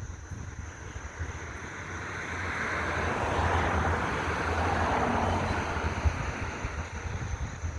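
EMD MP15 switcher's diesel being cranked on weak batteries, a start attempt after priming. A low rumble runs throughout, with a broad rush of noise that builds, peaks mid-way, then fades.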